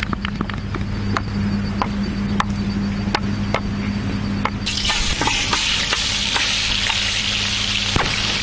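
Fish sizzling in hot frying oil: a loud, steady hiss that starts abruptly about five seconds in. Before it there is a low steady hum with scattered sharp clicks.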